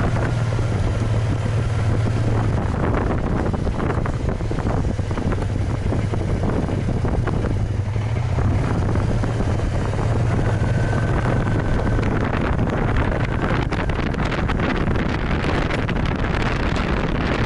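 A BMW maxi-scooter's engine runs with a steady low drone while riding, with wind noise on the microphone.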